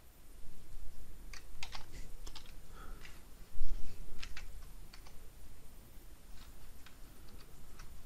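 Computer keyboard typing: irregular key clicks, with a louder low thump about three and a half seconds in.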